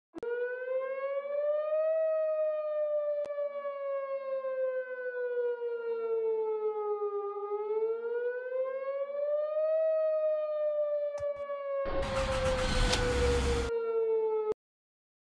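Outdoor tornado warning siren wailing, its pitch sweeping slowly up and down twice. A short burst of rushing noise comes about twelve seconds in, and the siren cuts off abruptly near the end.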